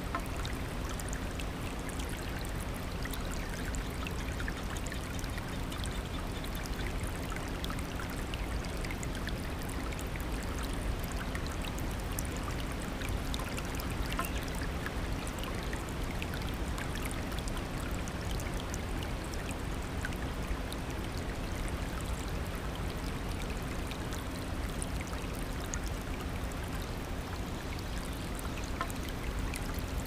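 Shallow rocky stream rushing over stones in a steady flow, with many small splashes throughout.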